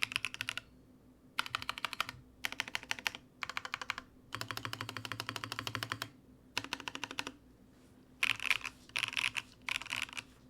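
Mode Sonnet mechanical keyboard with BSUN Tuzi linear switches and MW Lilith keycaps, top-mounted aluminium plate and no foam, typed on in quick bursts of keystrokes with short pauses between. There is a longer, steady run of fast keystrokes about halfway through.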